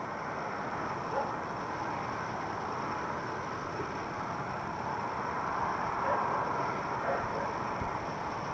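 Steady outdoor background noise, an even rushing sound like distant traffic, with no distinct events from the rabbit.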